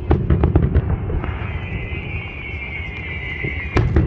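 Fireworks salute: a quick run of crackling bursts, then a long high whistle that sinks slightly in pitch, and a fresh cluster of loud bangs near the end, over low rumbling booms.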